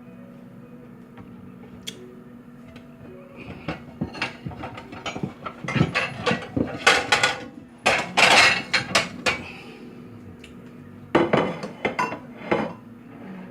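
Utensils clinking and scraping on dishes in a run of sharp clatters, busiest from about three to nine seconds in, with a shorter burst near the end.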